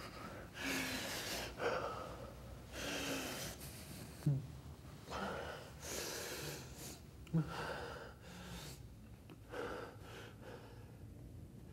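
A man breathing hard in heavy, gasping breaths about every second or two, with two short grunts in the middle.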